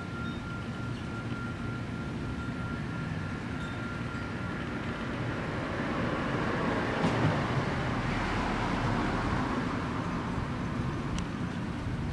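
Steady low rumble of background noise that swells louder about six seconds in, then eases off, with a faint thin whine underneath.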